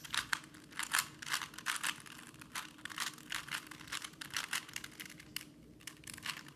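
Plastic Rubik's Cube layers being twisted in quick succession: an irregular run of sharp clicks and rattles, several a second, with a brief pause near the end.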